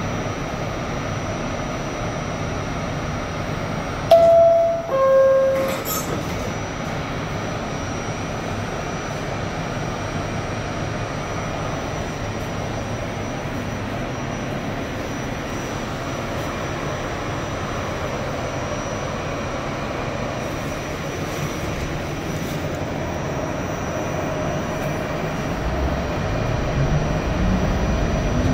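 R68A subway car standing in the station with a steady hum, then a two-tone door chime about four seconds in, the higher note first, followed by a short knock as the doors close. Near the end the traction motors start a rising whine as the train pulls away.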